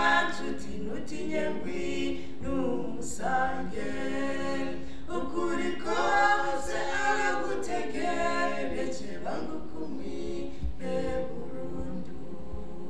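Three voices, two men and a woman, singing together a cappella into handheld microphones.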